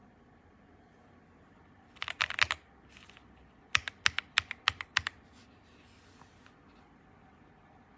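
Keystrokes on a Womier SK71 mechanical keyboard with pre-lubed linear switches: a quick flurry of key presses about two seconds in, then about seven evenly spaced presses, roughly five a second.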